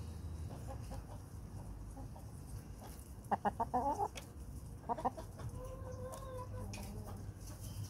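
Domestic hens clucking: a quick run of clucks about three seconds in, a shorter pair a second later, then one drawn-out call held at an even pitch.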